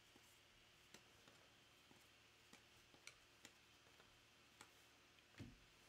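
Near silence: room tone with a few faint, irregular clicks and a soft thump near the end.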